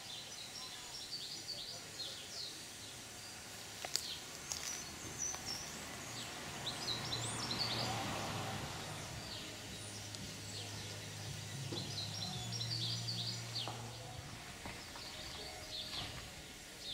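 Small birds chirping in quick repeated high notes over quiet background noise. A soft hiss swells and fades around the middle, with a faint low hum under it.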